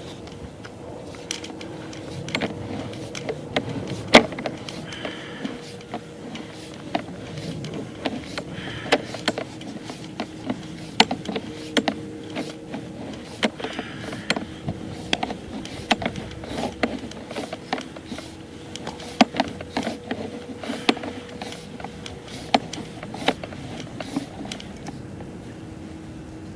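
Sewer inspection camera equipment handling: the push cable and camera head being worked in the pipe, with irregular clicks and knocks over a steady faint hum.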